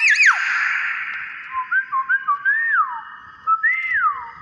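Hill myna whistling a string of clear notes that slide up and down, several short upward slurs followed by a longer falling note, over a steady hiss.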